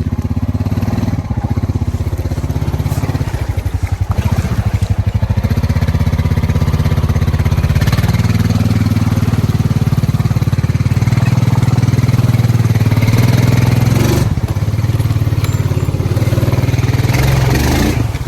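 Rubicon ATV engine running hard under throttle in two-wheel drive, its pitch rising and falling as the wheels churn through a mud hole.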